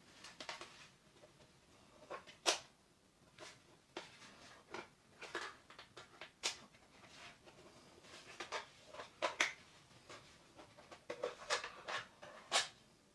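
Hard plastic RC truck parts being handled, giving a string of irregular clicks and light knocks, a few of them sharp.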